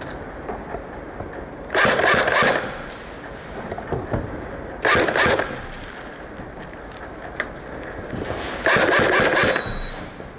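Airsoft gun firing three short rapid-fire bursts, each a fast rattle of shots lasting under a second, about two, five and nine seconds in.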